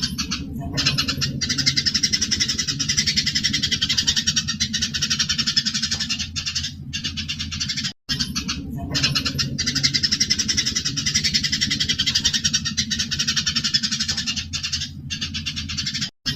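Eurasian tree sparrows (burung gereja) giving their fighting calls: a dense, continuous chatter of rapid high chirps over a low steady hum. The chatter breaks off for a moment about eight seconds in, where the recording loops.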